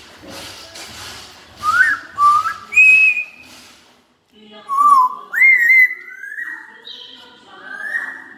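African grey parrot whistling. A few soft breathy puffs, about two a second, lead into a rising whistle and a higher held one. After a short pause comes a run of sliding whistles and chirps.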